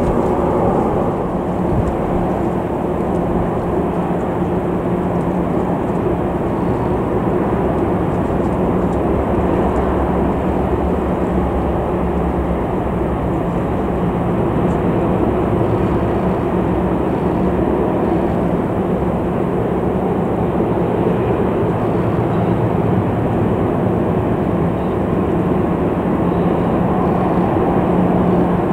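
Norfolk Southern diesel-electric freight locomotives running past: a loud, steady low rumble with a constant engine drone.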